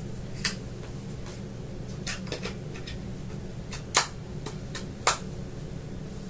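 Small plastic clicks and taps from handling a portable weather radio while fitting its battery into the back compartment. Two sharper clicks come about four and five seconds in, over a steady low hum.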